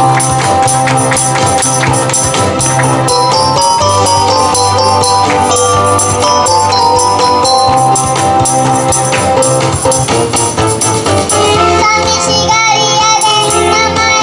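Upbeat pop backing music with a steady beat and jingling, tambourine-like percussion, played through stage speakers; from near the end a high wavering melody line, like a singing voice, comes in over it.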